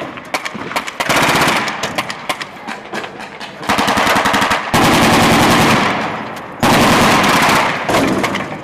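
Rapid automatic gunfire in long, sustained bursts, one run after another with short gaps between. It is loudest from about halfway through.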